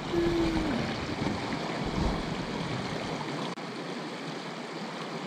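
Shallow creek water rushing and splashing over rocks and riffles, a steady hiss, with a low rumble on the microphone for the first three seconds or so.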